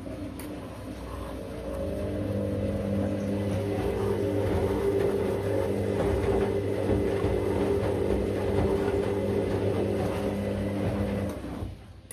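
Candy CS1292D3 front-loading washing machine turning its drum during the final rinse: a steady motor hum with water and laundry sloshing, swelling about two seconds in and cutting off suddenly near the end as the drum stops.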